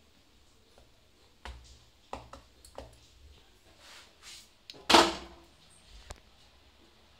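A few knocks and clatters of kitchen utensils being handled, the loudest a longer scraping clatter about five seconds in, followed by one sharp knock a second later.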